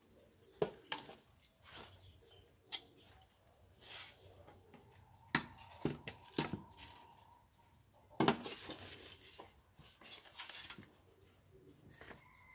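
Flower pots and potting soil being handled: scattered knocks and clicks, with a denser burst of scraping and rustling about eight seconds in.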